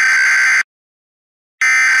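Emergency Alert System SAME header tones: loud, buzzy digital data bursts. One burst cuts off about half a second in, then after a second of silence the next starts, the repeated header that precedes the alert.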